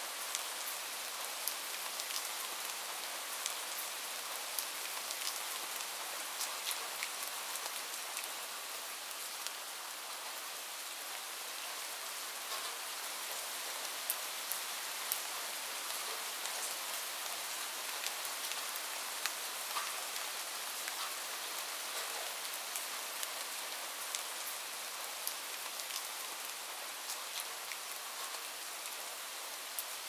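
Light rain falling steadily: an even hiss with many small, sharp drop ticks scattered through it.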